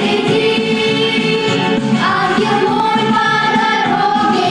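A children's vocal group singing a pop song together over instrumental accompaniment, with a girl's voice on a microphone in front. The voices hold long notes from about two seconds in.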